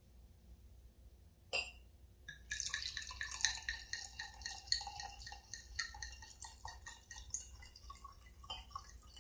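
Dandelion mead poured from a glass wine bottle into a wine glass, splashing and gurgling into the glass from about two and a half seconds in, after a single click.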